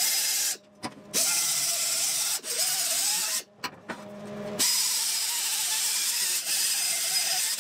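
Pneumatic 90-degree angle grinder with a 60-grit Roloc disc grinding down MIG weld tacks on steel exhaust tubing. It runs in bursts, cutting off briefly twice and then running steadily, with a hissing air sound and a whine that wavers under load.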